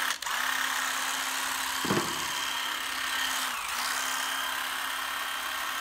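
Hitachi 12V cordless impact driver running free with no load, a steady motor whine that drops out and picks up again a few times as the trigger is eased and squeezed. The variable-speed trigger works smoothly.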